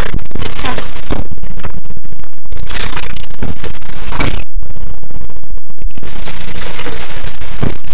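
Loud, heavily distorted crackling noise that cuts out briefly a few times around the middle.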